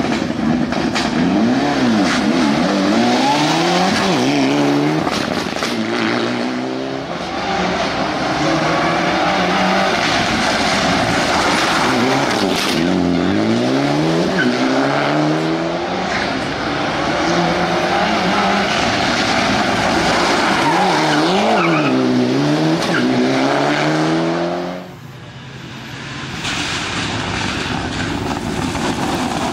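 Mitsubishi Lancer Evolution IX rally car's turbocharged four-cylinder engine revving hard on a stage, its pitch climbing and then dropping again and again as it changes up through the gears. The sound dips briefly about 25 seconds in, then the engine picks up again.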